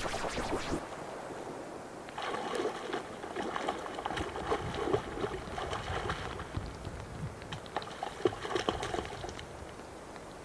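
Water trickling and gurgling.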